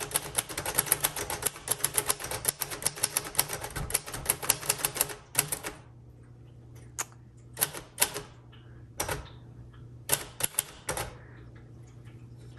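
1958 Royal Aristocrat manual typewriter being typed on: a quick run of key strikes for about five seconds, then slower, scattered keystrokes.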